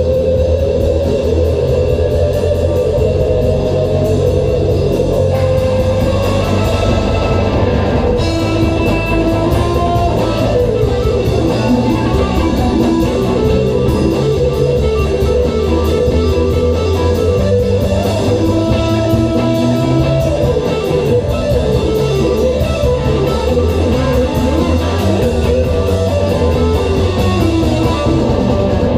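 A rock band playing live: electric guitar over a drum kit in a loud, continuous instrumental passage with no singing.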